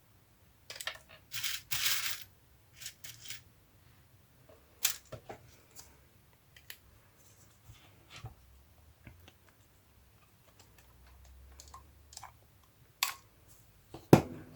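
Paper and craft pieces being handled on a desk: a few short rustles in the first two seconds, then scattered light taps and clicks, with a sharper knock near the end.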